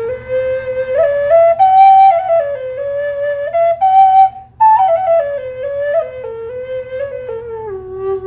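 Native American flute playing a slow melody of held notes that climbs to a high note, then after a short breath falls back down, ending on a low note pulsed rapidly. A steady low hum runs underneath.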